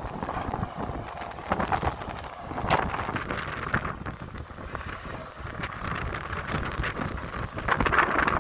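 Caterpillar diesel excavator running as it digs and swings loads of dirt, its engine rumbling under changing load, with wind buffeting the microphone in gusts that swell loudest near the end.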